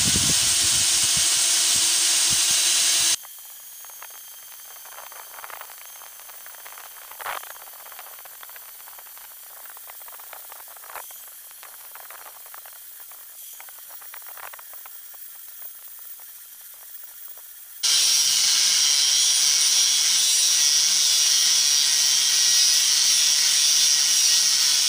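Angle grinder with a thin cutoff disc cutting through thick-walled steel pipe: a loud, steady, high hiss of the disc biting the metal. About three seconds in the sound drops away abruptly to faint clicks and rattles for some fifteen seconds, then comes back just as suddenly.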